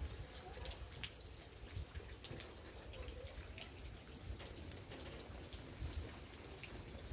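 Faint light rain falling, with scattered small ticks of drops landing.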